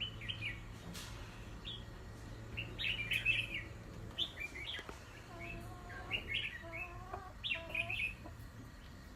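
Red-whiskered bulbuls singing: short, bubbly phrases repeated every second or so, high in pitch. A lower, wavering run of notes joins between about five and eight seconds in.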